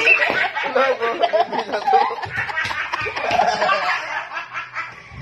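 People laughing and snickering together at a joke.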